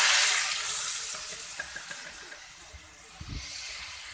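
Boiled beef and mash (urad) dal sizzling in hot ghee in an aluminium pan just after being poured in, a loud hiss that slowly dies down. A short low thump a little past three seconds in.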